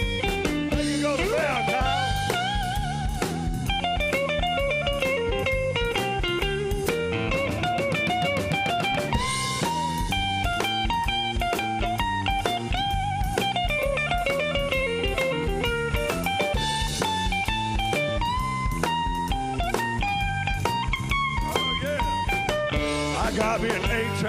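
Blues band instrumental break: an electric guitar solo full of bent notes, over a drum kit and steady low backing.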